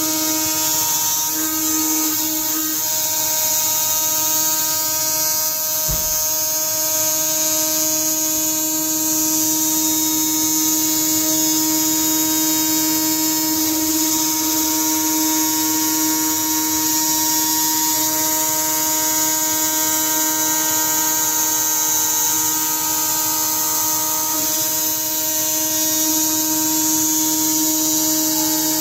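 CNC router spindle running at high speed: a steady high-pitched whine with a hiss above it.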